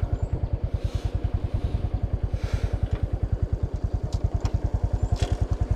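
Motorcycle engine running steadily at low speed while riding, an even fast putter of about ten beats a second, with a few brief swells of hiss.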